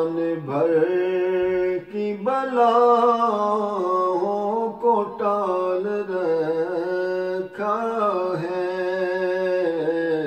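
A man singing an Urdu devotional kalam unaccompanied, drawing out long, ornamented held notes, with brief pauses between phrases about two and seven and a half seconds in.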